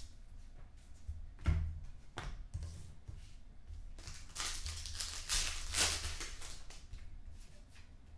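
Foil trading-card pack wrappers crinkling and tearing as packs are opened and the cards slid out and handled, with a sharp tap about a second and a half in and a longer stretch of crinkling in the middle.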